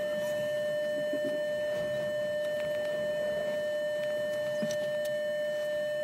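A steady electronic tone held at one pitch, with fainter higher overtones: a tone laid over the fast-forwarded footage.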